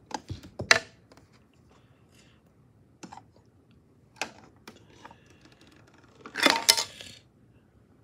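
Plastic clicks and scrapes as a thin tool pries at the broken battery cover of a plastic toy washing machine. A louder plastic clatter comes about six and a half seconds in as the cover comes free.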